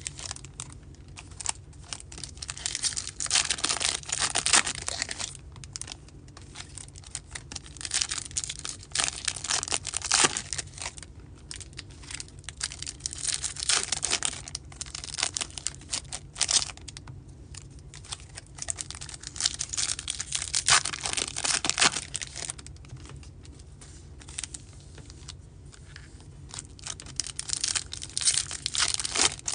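Foil trading-card pack wrappers crinkling and tearing as the packs are ripped open by hand and the cards pulled out, in bursts with short quieter gaps between packs.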